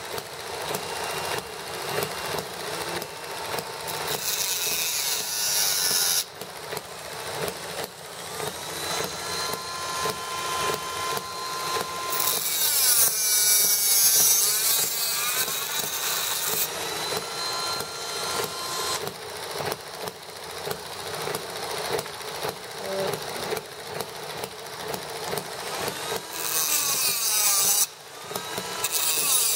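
Handheld rotary tool running at high speed with a cut-off wheel, its motor whining and wavering in pitch as the wheel cuts through small brass radiator pipes. The cutting comes as louder, hissing grinding spells: briefly about four seconds in, for several seconds around the middle, and again near the end.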